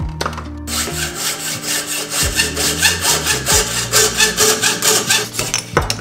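Hand saw cutting through a carbon fork steerer tube held in a saw guide, with rapid back-and-forth rasping strokes that start about a second in and stop just before the end with a sharp knock.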